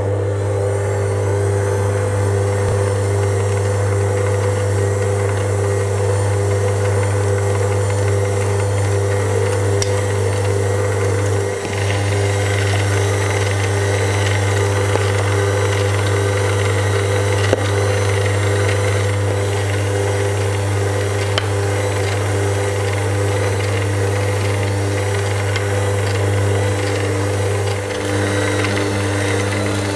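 Kenwood kMix stand mixer's motor running steadily, driving its meat-mincer attachment as it grinds pork sausage meat through a finer plate. The hum dips briefly twice, about twelve seconds in and again near the end.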